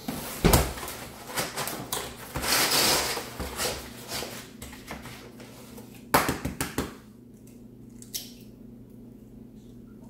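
A large cardboard case of eggs being set down and opened on a kitchen counter: knocks and rustling cardboard, with a cluster of knocks about six seconds in. A single sharp tap near the end as an egg is cracked on the bowl.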